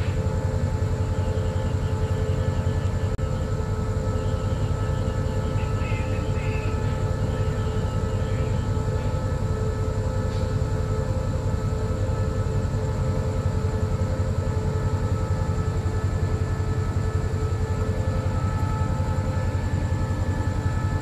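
Diesel train engine idling steadily: a constant low drone with several steady whining tones above it, unchanged throughout.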